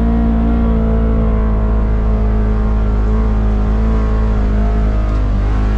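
Polaris Xpedition UTV's twin-cylinder engine running at steady revs inside the closed cab as it crawls along the trail in low-range four-wheel drive, a constant drone that holds its pitch.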